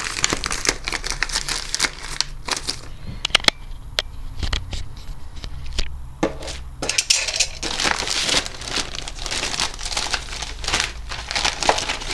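Plastic courier mailer bags crinkling and rustling as they are handled and pulled open, with irregular sharp crackles. The sound eases off for a few seconds a third of the way in, with a few isolated clicks, then the crinkling picks up again.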